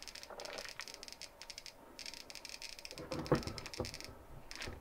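Old civil-defense Geiger counter clicking rapidly and irregularly through its speaker as its probe is held over a thoriated gas-lantern mantle, the clicks showing the mantle's slight radioactivity from thorium. There are a couple of louder knocks about three seconds in.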